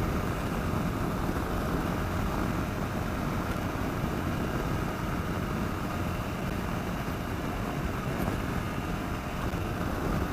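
Steady wind rush over the microphone of a motorcycle riding at cruising speed, with the 2009 Kawasaki KLR650's single-cylinder engine running underneath.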